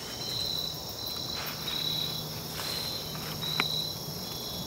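Insects calling: a high, shrill chirp repeating about twice a second over a steady high drone. A single sharp click comes about three quarters of the way through.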